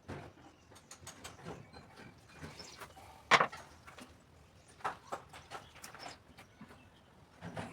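Scattered clicks and knocks of objects being handled, with one sharp, loud knock about three seconds in.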